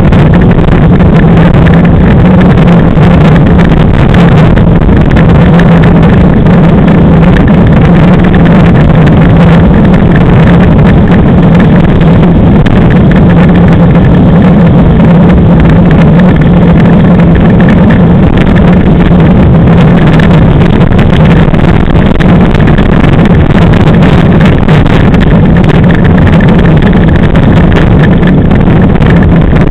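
Class 5 land yacht running at speed on hard sand: a loud, steady rumble of its wheels rolling over the surface and the chassis shaking, picked up through a camera fixed to the yacht, with a steady low drone under it.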